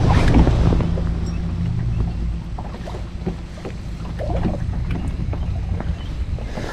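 Boat motor humming steadily, with wind rumbling on the microphone, loudest at the start.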